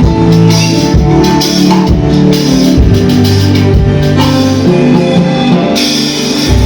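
Loud music with a drum kit and a strong bass line that steps between notes.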